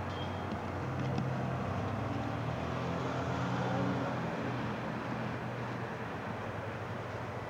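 A vehicle engine running, its low hum swelling from about a second in to around four seconds, then easing, over steady outdoor noise.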